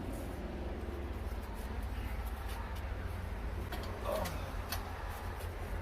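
A few faint clicks and taps of a metal light-fixture mounting bracket being handled, over a steady low rumble.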